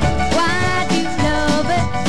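Early-1960s British pop record in the girl-group sound playing: a band with a steady beat and gliding melodic singing over it.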